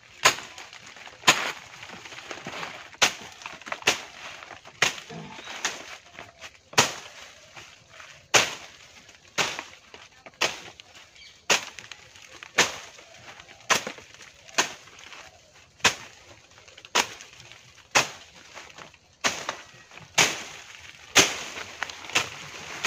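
Machete (dao) chopping through tea-bush stems and twigs in steady strokes, about one sharp cut a second, while pruning tea bushes.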